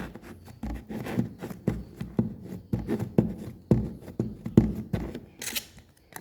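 Slime being pressed and worked into a small plastic pot: a run of soft squelches and clicks, about two a second.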